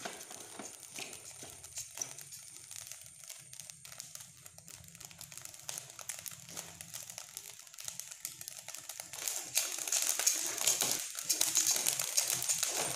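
Washed matta rice dry-roasting in a hot aluminium pot, the grains crackling and popping as they are stirred with a wooden spatula. The crackle is the sign that the rice is roasting crisp, and it gets louder and denser from about nine or ten seconds in.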